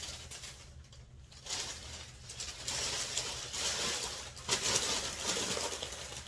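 Packing wrap rustling and crinkling as it is handled, quiet at first, then louder and uneven from about a second and a half in.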